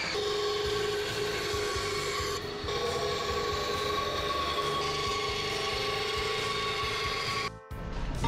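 Power saws cutting wood: first an Einhell miter saw, then a benchtop bandsaw cutting through a small wooden block, each with a steady motor whine over the hiss of the cut. The sound changes about two seconds in, when the bandsaw takes over, and cuts off suddenly near the end.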